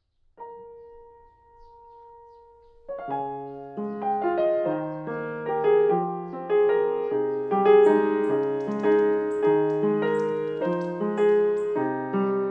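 Gentle solo piano music: a single note rings out alone and fades for about two and a half seconds, then flowing broken chords begin, the notes following one another in a steady rhythm.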